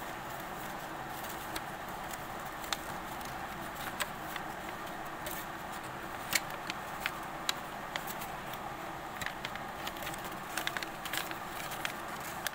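White paper being folded and creased by hand: scattered short crackles and taps over a steady background hiss, coming more often in the second half.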